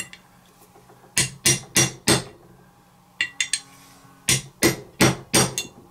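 Light, sharp taps driving a lay shaft ball bearing down into an RC transmission case until it seats flush: a run of four taps, a short pause with a few faint clicks, then five more taps about three a second.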